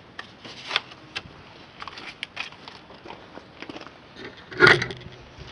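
Handling noise from work on a corn picker's drive belt: scattered light clicks and scrapes, with one louder, longer noise about four and a half seconds in.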